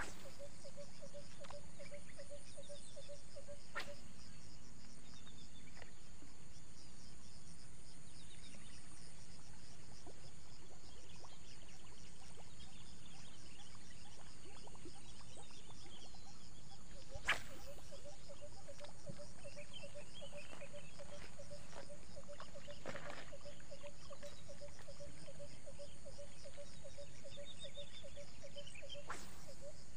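Steady chorus of crickets and other insects, with faint bird chirps and a low pulsing trill that drops out for over ten seconds. A few sharp clicks stand out, the loudest about seventeen seconds in.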